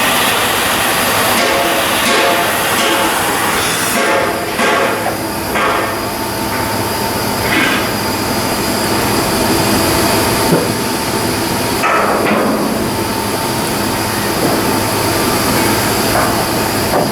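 Shipyard work noise: a loud, steady mechanical din with occasional metal knocks.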